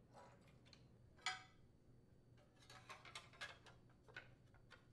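Faint clicks and light taps as an engine cooling baffle is handled and fitted against a Kohler Command twin-cylinder engine: one click a little over a second in, a short cluster around three seconds in, and another just after four seconds.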